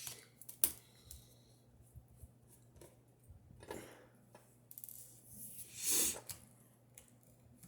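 Small tools and parts clicking and scraping while an iPhone 6S Plus is taken apart: a sharp click about half a second in, faint scattered ticks, and two longer scraping swells around four and six seconds, over a low steady hum.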